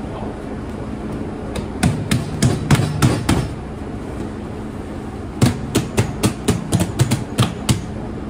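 Two runs of sharp knocks or bangs on a hard surface, the second longer, about four a second, over a steady machine hum.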